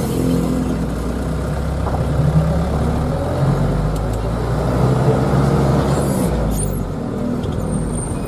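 Diesel minibus engine running on the road, heard from inside the cab, its note shifting with speed about halfway through and again near the end.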